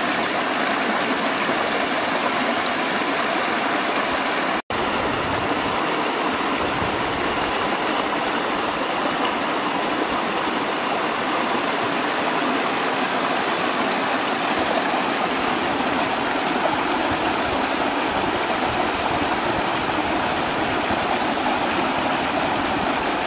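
Steady rushing of a shallow stream running over rocks in a small cascade, cutting out for an instant about five seconds in.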